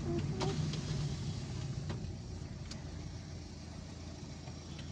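Car engine and road noise heard from inside the cabin while driving slowly: a steady low rumble with a few faint clicks, easing a little after about two seconds.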